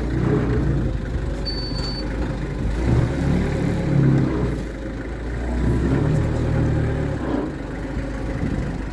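An engine running, its note swelling louder a couple of times, with a short high tone about a second and a half in.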